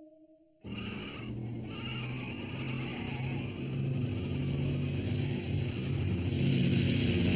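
A large flock of sheep bleating, many overlapping calls that start suddenly under a second in and grow louder.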